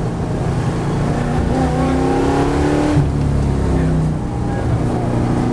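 Holden VH Commodore SS V8 engine heard from inside the cabin, under load at rally pace. The revs climb, drop sharply about three seconds in, then rise slowly again, over steady road and tyre rumble.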